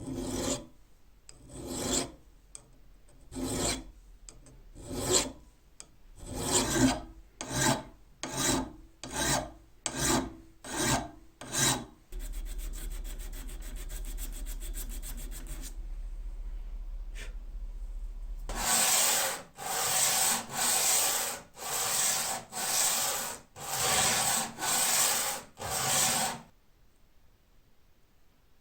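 Hand abrasive work on an old cobbler's hammer: a dozen short rubbing strokes that come faster and faster. Then several seconds of a steady low hum with fine rapid ticking. Then eight longer, harsher strokes of sandpaper rubbed by hand over the hammer's steel.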